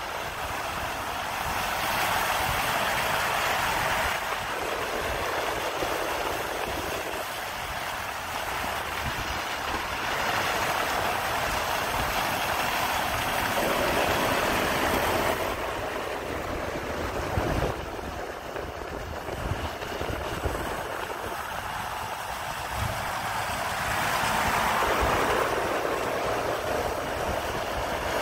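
Renault tractor units driving past one after another over slushy snow: diesel engines running with a low rumble and tyre hiss that swell and fade several times as each truck goes by.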